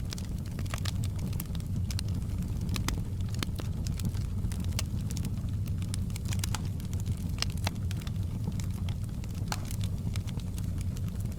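Wood fire burning in a fireplace: a steady low rumble with frequent irregular pops and crackles.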